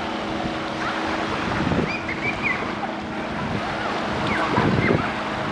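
Sea waves washing onto a beach, with wind buffeting the microphone, a steady low hum and faint distant voices.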